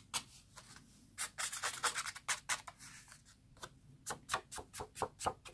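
Flat-bristled brush swept in quick short strokes across a black card panel, brushing eraser crumbs off its foiled edges. The strokes come as a string of brief, dry swishes, about three or four a second.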